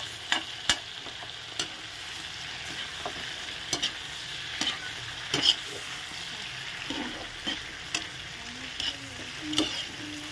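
Whole shrimp frying in butter in a wok, sizzling steadily. A metal spatula stirs them, and its scrapes and clicks against the pan come at irregular moments.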